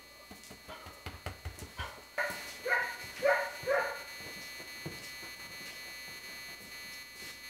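A dog gives four short yips in quick succession, after a few light taps. From about two seconds in a steady high electronic buzz runs underneath, from a failing camera.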